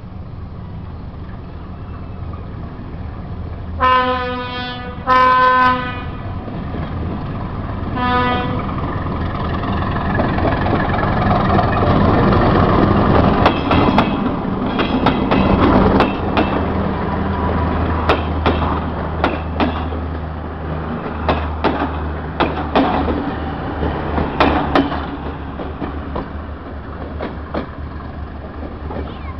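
A diesel passenger locomotive sounds its horn three times as it approaches: two blasts close together, then a shorter one. The locomotive's engine then grows loud and the train passes, with wheels clacking over the rail joints, and the sound fades near the end.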